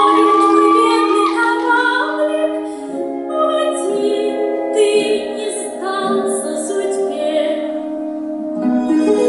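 Slow music with long held notes and a female voice singing.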